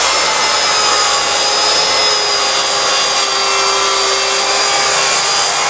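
Jemar track saw cutting across a rubberwood laminated panel as it is pushed along its guide rail: a steady motor whine with the blade in the wood. An auto-start dust extractor runs with it through the hose.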